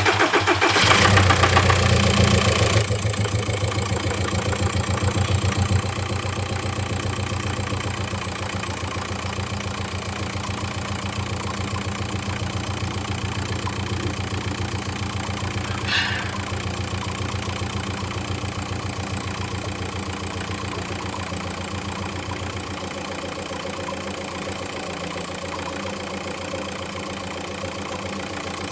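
Audi 1.9 TDI four-cylinder turbodiesel engine just after starting: it runs louder for the first few seconds, then settles to a steady idle with a ticking that is not normal. A single short click about 16 seconds in.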